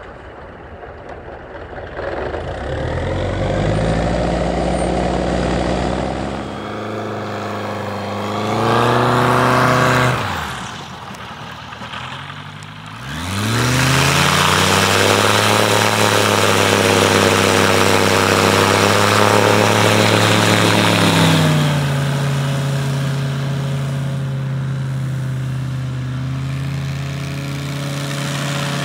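Light bush plane's piston engine and propeller running at changing throttle: the pitch climbs and falls several times, drops sharply and sweeps back up around ten to thirteen seconds in, holds at high power for several seconds, then eases back to a lower steady note for the rest.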